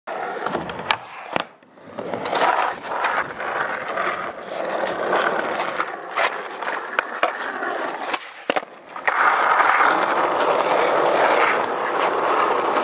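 Skateboard wheels rolling on rough asphalt, broken by several sharp clacks of the board hitting the ground. The rolling grows louder about nine seconds in as the board comes close.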